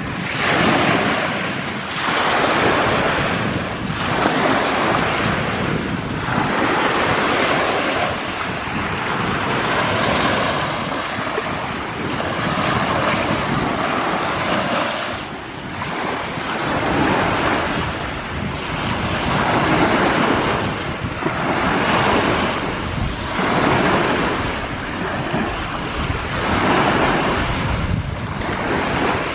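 Waves washing onto a lake shore, surging about every two to three seconds, with wind rumbling on the microphone.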